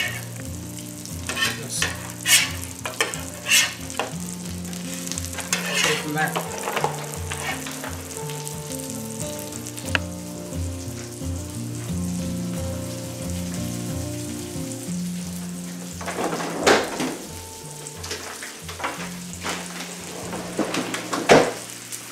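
Eggs and pork sausage patties sizzling on an electric griddle, with a metal spatula scraping and tapping on the griddle surface now and then, the loudest strokes about 17 and 21 seconds in.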